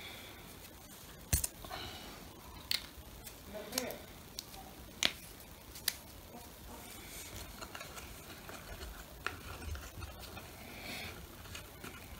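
Scattered small clicks and taps of hands handling small objects on a tabletop, half a dozen short sharp ones spread irregularly with quiet rustling between.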